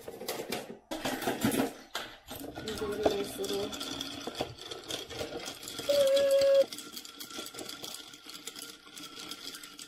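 Metal straw stirring quickly in a glass jar of iced tea and milk, clinking and rattling rapidly against the glass. About six seconds in, a short steady tone rings out, the loudest moment.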